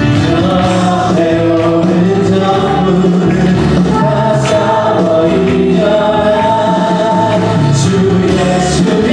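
Worship music: voices singing a praise song together in long held notes over instrumental accompaniment.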